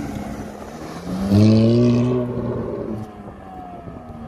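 Ferrari F430's V8 engine under hard acceleration from a standstill: a loud, slightly rising engine note sets in about a second in and dies away after about two seconds.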